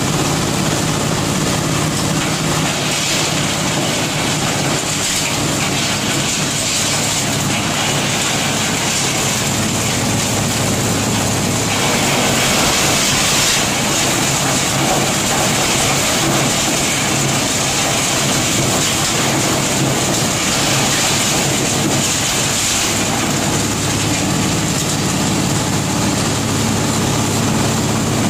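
Areca nut dehusking machine, driven by an 8 hp diesel engine, running steadily: an engine drone under a dense rattling hiss of dried nuts being thrashed and husked inside the drum. The hiss gets harsher about twelve seconds in as more nuts are fed into the hopper.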